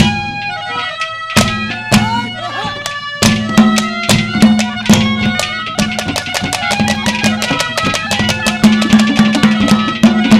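Instrumental break of a Haryanvi ragni: a held melody over a steady low drone, with fast hand-drum strokes that grow denser about three seconds in.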